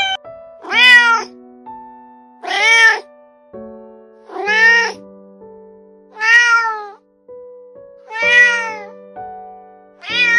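Cat meowing repeatedly, about one meow every two seconds, each one rising and then falling in pitch.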